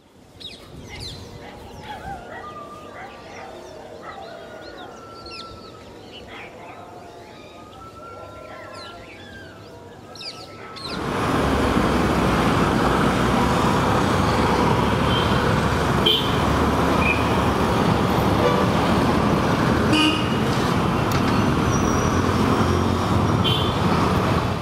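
Birds chirping and calling for about the first eleven seconds. Then the sound cuts suddenly to loud, steady street traffic: motorbike and bus engines, with a few short horn toots.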